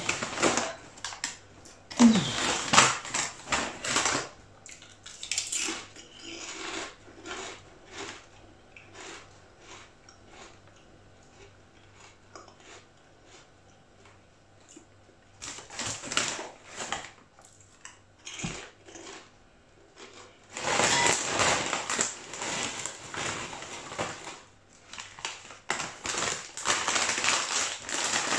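A crisp packet crinkling as it is handled, in bursts about two seconds in, around the middle and through the last third, with scattered small crunches of potato crisps being eaten in the quieter stretches between.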